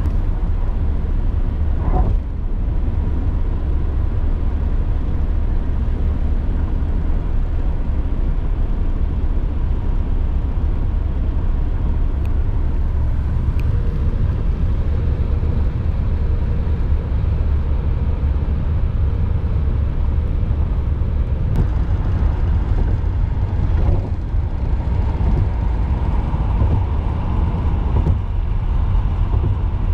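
Steady road noise inside a car driving at highway speed: a continuous low rumble of tyres and engine, with no distinct events.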